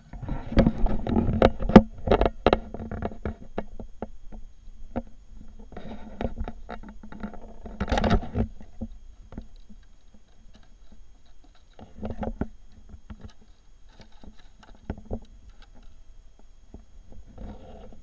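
Handling noise of walking over grass to an RC truck and working on it: irregular rustles, knocks and clicks, loudest in the first few seconds, with more near the middle as a hand pulls a body clip and lifts the plastic body shell.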